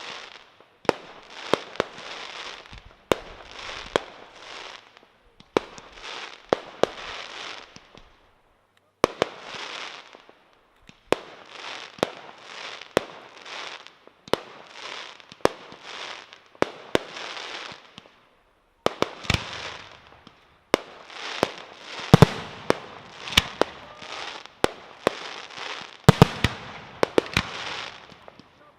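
Aerial firework shells bursting one after another, about one a second: each sharp bang is followed by a noisy tail lasting about a second. Two brief pauses come about a third and two thirds of the way in, and the bangs grow louder in the last third.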